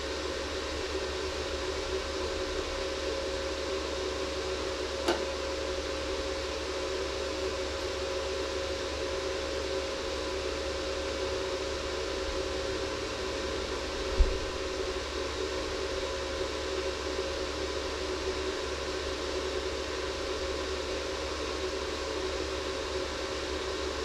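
Steady hum of a running fan, with a faint click about five seconds in and a short thump about fourteen seconds in.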